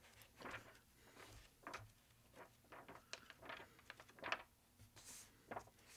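Pages of a vintage hardback book being leafed through by hand: a series of faint, brief paper rustles and flicks.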